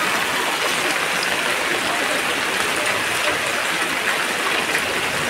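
Steady, even hiss of water with no breaks.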